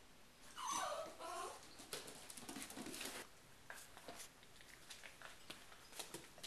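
A yellow Labrador retriever puppy, under eight weeks old, gives one short whine about half a second in, followed by a flurry of light clicks and taps that thins out to scattered ticks.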